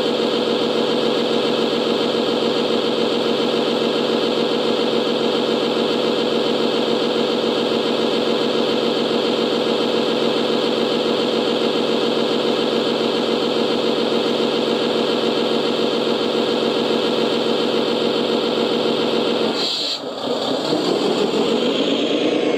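Model Rosenbauer Panther 6x6 airport fire truck running steadily while its roof monitor sprays water, a constant engine-like drone. About twenty seconds in it cuts out briefly as the spraying stops, then an engine sound picks up again, rising in pitch.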